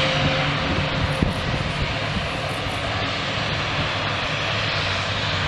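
Engine of a small fixed-wing aircraft flying overhead, a steady drone.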